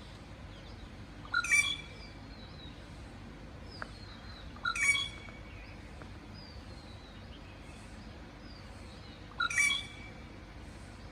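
Birds calling: a loud, short call three times, several seconds apart, with fainter short whistles between, over a steady background hiss.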